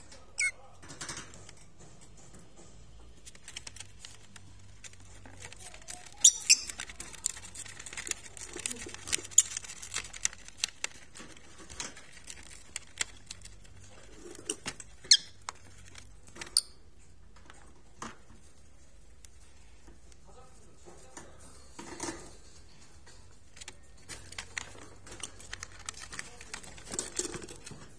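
Lovebird shredding and rustling paper on a cage floor: scattered sharp clicks and rustles from its beak and feet on the paper, with a few short high squeaks mixed in.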